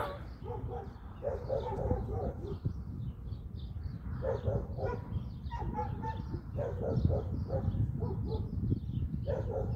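Small birds chirping throughout, with short clusters of lower calls every second or two, over a low rumble.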